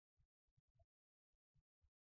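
Near silence, broken by a few faint, irregular clicks.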